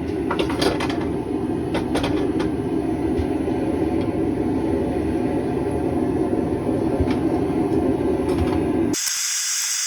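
Forge burner running with a steady, low rushing noise while steel heats in it, with a few light metallic clicks. About nine seconds in, the rushing cuts off suddenly and a high hiss takes over.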